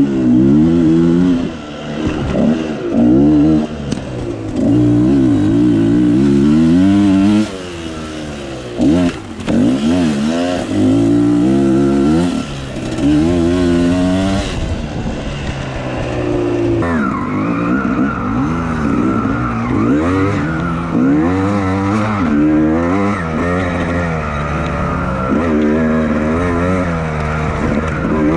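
Dirt bike engine revving up and falling back over and over as the throttle is worked on and off.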